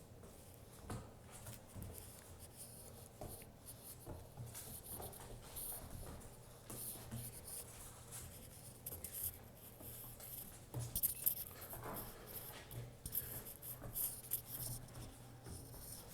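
Faint scratching and light clicks of a puppy's paws and claws moving about on hard ground, scattered irregularly, with a few sharper ticks about eleven seconds in.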